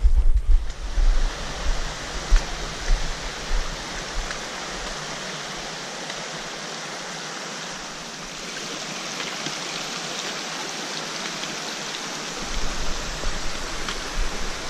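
Mountain stream rushing steadily over rocks, a constant even water noise. Low bumps from walking and camera movement are heard at the start and again near the end.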